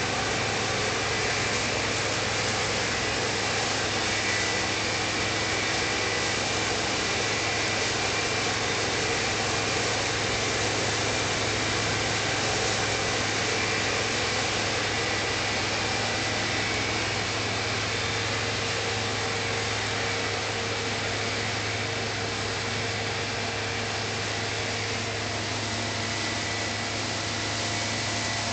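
New Holland TX36 combine harvester running under load while threshing wheat: a steady din of engine and threshing machinery with a few steady whining tones, growing slightly fainter in the second half as the machine moves off.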